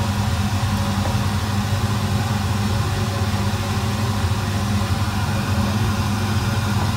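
A steady, low mechanical hum that holds an even level throughout.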